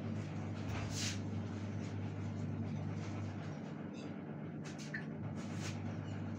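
Steady low electrical hum, with a few soft knocks and rustles as things are handled at a steel cupboard, once about a second in and twice near the end.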